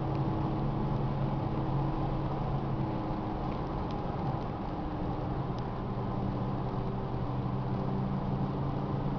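Inside the cabin of a 1982 Audi 200 Turbo (type 43) cruising at a steady speed: the turbocharged inline five-cylinder engine hums at an even pitch under a constant haze of road and tyre noise.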